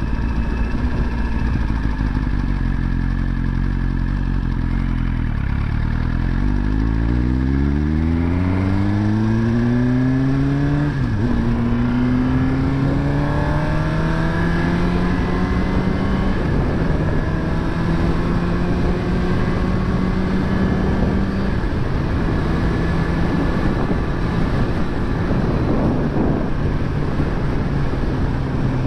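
Suzuki GSX-R1000R inline-four engine idling steadily, then revving up with its pitch climbing. The pitch dips briefly, climbs again and levels off, then the sound turns rougher near the end.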